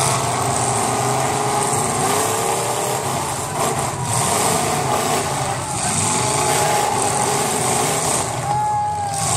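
Several demolition derby cars' engines running and revving in the arena, with crowd voices mixed in.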